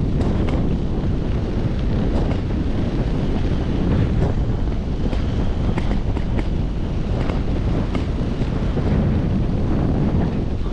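Wind buffeting the microphone over a steady rush of sea water, with a few faint clicks.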